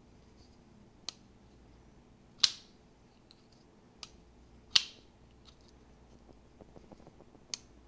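Ruike P865 folding pocket knife's blade snapping open twice with a sharp metallic click, about two and a half seconds in and again near five seconds. Fainter clicks from the knife come between and after the two snaps.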